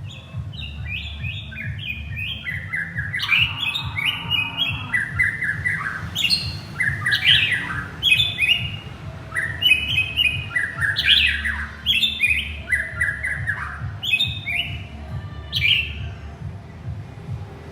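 White-rumped shama singing to its mate: repeated phrases of quick whistled notes that slide downward, each phrase stepping lower in pitch, with short pauses between them.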